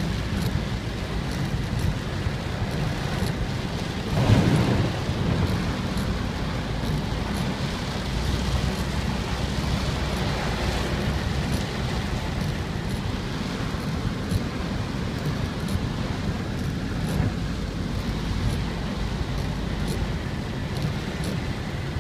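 Heavy rain on a moving car, heard from inside the cabin, with steady rain and road noise. There is a brief louder low rumble about four seconds in.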